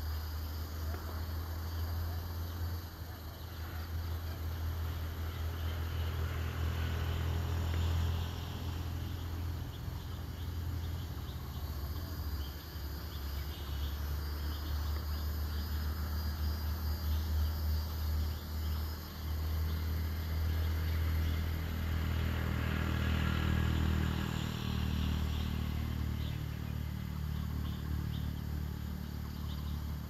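A motor vehicle's engine running nearby, a steady low rumble that swells twice, about a quarter of the way in and again past the two-thirds mark.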